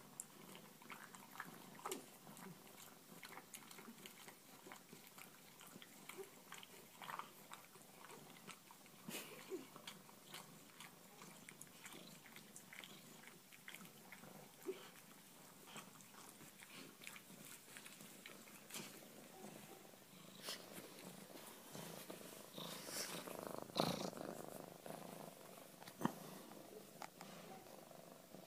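Faint, irregular clicking and smacking mouth sounds of a pet chewing. There is a louder burst about three-quarters of the way through and a single sharp click shortly after it.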